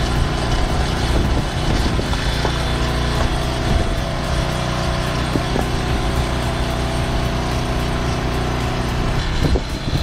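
Small gasoline engine of a hydraulic log splitter running steadily, with a few faint knocks.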